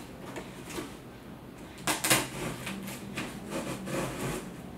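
A blade scraping and slitting the packing tape along the top of a cardboard box, with one sharper, louder scrape about two seconds in.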